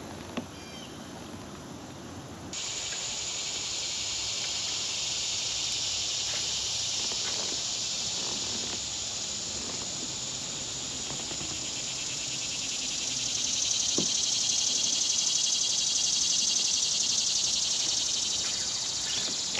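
A chorus of insects, a steady high buzzing that comes in suddenly about two and a half seconds in. It swells louder over the last several seconds with a fast, even pulse running through it.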